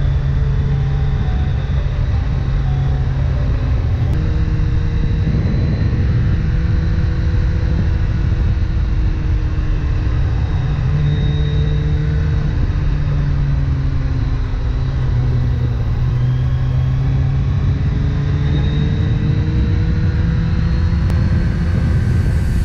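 Motorcycle engine running at a steady cruise under a constant rush of wind on the microphone, its pitch sagging gently and rising again.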